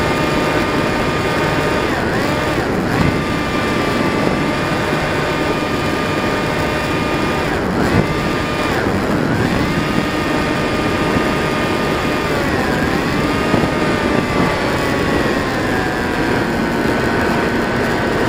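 Electric motor and propeller of a Bixler 2 RC foam plane whining in flight over a steady rushing noise, the pitch dipping briefly several times as the throttle is eased off and reapplied, and sagging slowly near the end.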